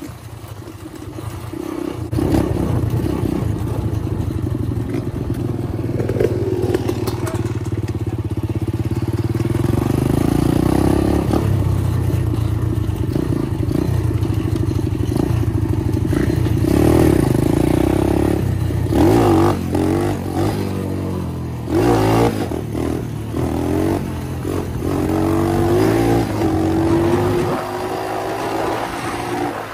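Four-stroke single-cylinder dirt bike engine picking up about two seconds in and running under throttle while the bike is ridden. Its pitch rises and falls repeatedly in the second half as the throttle opens and closes through the gears.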